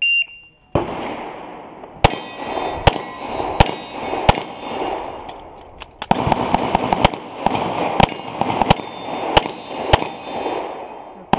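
A competition shot timer beeps once, and about a dozen pistol shots follow, each under a second apart, with a pause of over a second near the middle. Each shot leaves a short echo.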